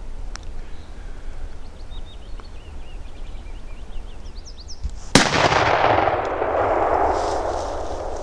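A single shotgun shot about five seconds in, its report rolling away through the forest for about three seconds. Before it, faint high bird chirps.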